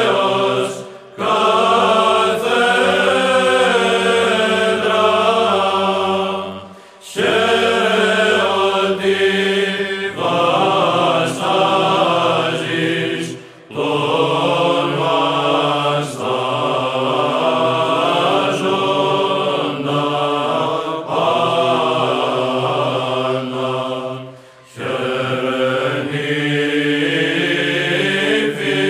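Voices singing a slow Orthodox church chant in long held phrases, with brief breaks between phrases.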